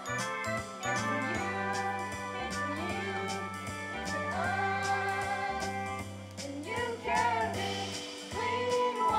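Performers singing a song over backing music with held bass notes.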